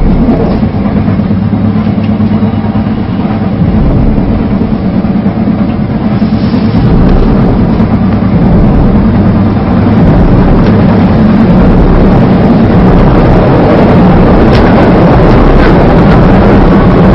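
Train running, a steady low rumble heard from inside the carriage, growing louder about eight to ten seconds in.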